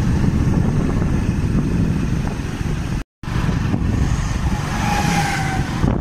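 Steady, loud rumble of a moving vehicle with wind buffeting the microphone, broken by a brief cut to silence about three seconds in.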